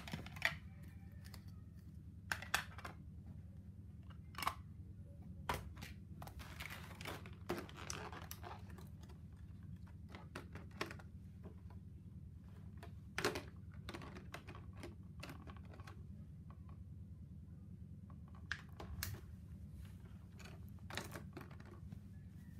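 Clear plastic packaging and bags being handled: scattered clicks and taps of hard plastic, with a stretch of crinkling about six seconds in, over a steady low hum.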